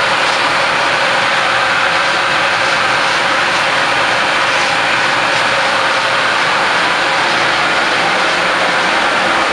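Machinery running inside the machine room of a Siemens Taurus class 1216 electric locomotive: a loud, steady rush of air with a couple of steady whining tones.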